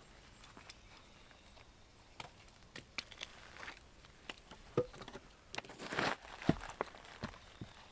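Scattered light knocks, clicks and short rustles, irregular and quiet, with a slightly louder rustle and knock about six seconds in.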